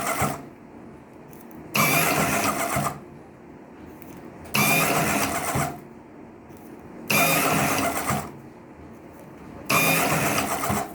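Electric 12 V slim cigarette rolling machine working through repeated cycles: its motor runs loudly for about a second, roughly every two and a half seconds, with a quieter steady sound between runs. Each run is one cycle of packing tobacco into a slim tube.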